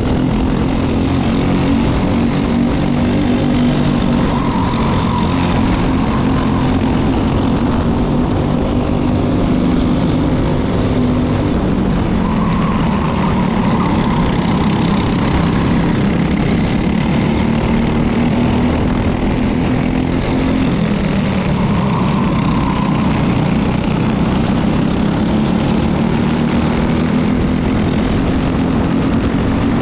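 Briggs & Stratton LO206 single-cylinder four-stroke kart engines racing in a close pack, heard from on board a kart: a loud, steady drone at high revs. Its pitch drops twice as the kart slows for corners, then climbs back as it accelerates out.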